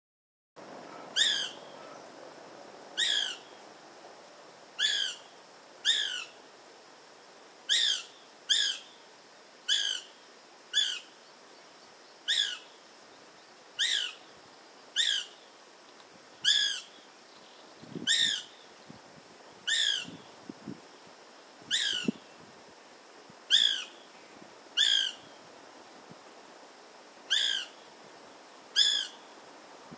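A woodpecker, which the uploader asks might be the cardón (white-fronted) woodpecker, calling over and over: about twenty short, sharp, falling whistled notes, one every one to two seconds.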